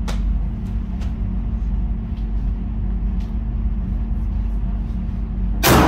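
A single .40 S&W pistol shot near the end, sharp and echoing off the range walls, over a steady low hum with a few faint ticks.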